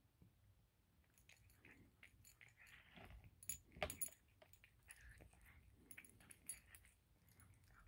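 Cat chewing a piece of fried chicken: faint, irregular crunching and clicking from the crisp breading, loudest about four seconds in.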